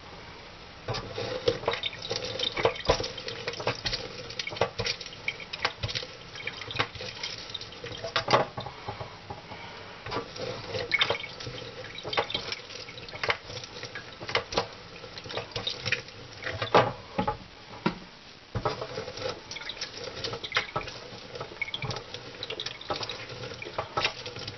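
Lemon halves pressed and twisted by hand on a plastic reamer juicer, with wet squelching and irregular plastic clicks and knocks, and squeezed halves dropped into a stainless steel sink.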